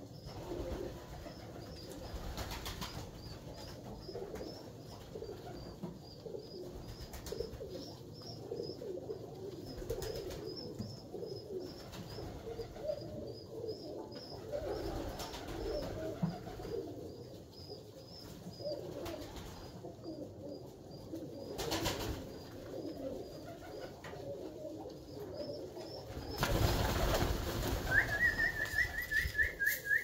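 Alföldi-Körösi tumbler pigeons cooing in a loft, a steady wavering murmur from several birds. Near the end a louder rush of wing flapping comes in as the flock moves off.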